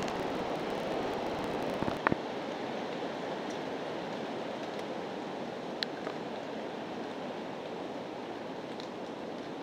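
Steady rushing hiss with no clear source. A short cluster of sharp clicks about two seconds in is the loudest moment, and a single click follows near six seconds.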